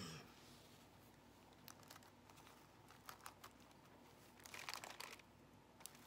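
Near silence, with a few faint light clicks and one brief crinkly rustle about four and a half seconds in, from hands handling materials.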